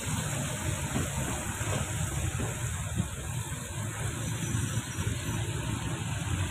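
Steady low rumble and hiss of a moving vehicle.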